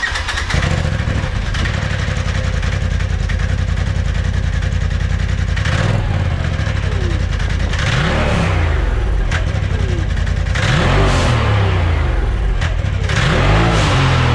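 Polaris turbo UTV engine idling, then revved three times in quick blips, pitch rising and falling each time, through an aftermarket-style exhaust test.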